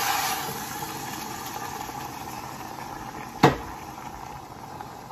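Chicken broth pouring into a hot pot of sautéed rice and sizzling, strongest at first and settling into a steady bubbling hiss. A single sharp knock about three and a half seconds in.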